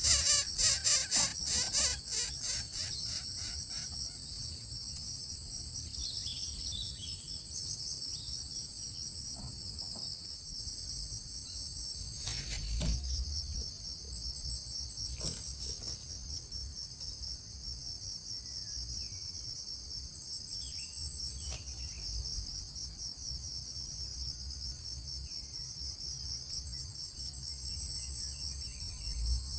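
A steady, high-pitched chorus of trilling insects. It pulses loudly for the first couple of seconds, then settles into an even trill, with a few faint short chirps now and then.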